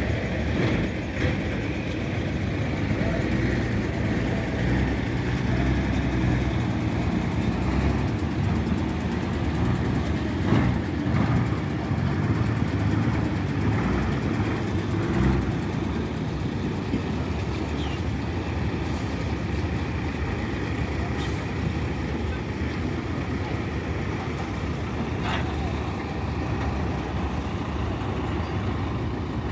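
Diesel cattle-truck engines running and manoeuvring, a steady low rumble, with a few brief knocks and clicks.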